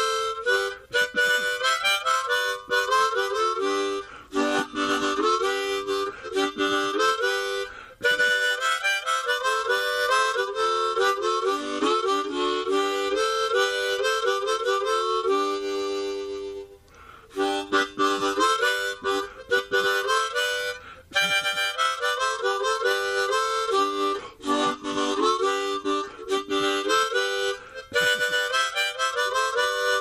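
Harmonica music: chords and notes played in a quick, repeating rhythmic pattern, with one chord held for about a second and a half a little past the middle.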